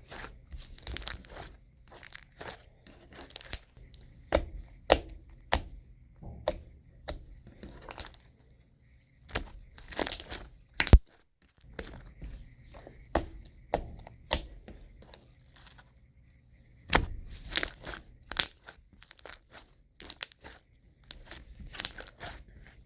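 Thick, glossy slime being squeezed and stretched by hand, giving off irregular clicks, pops and crackles, with one sharp, loud pop about eleven seconds in.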